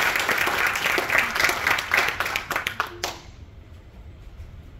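Audience applauding, the clapping stopping about three seconds in.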